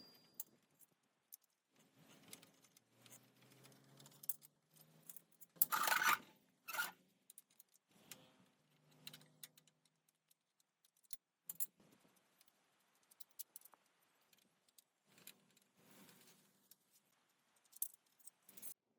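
Metal parts and tools being handled: scattered clinks, knocks and short scrapes, with one loud metallic clank about six seconds in.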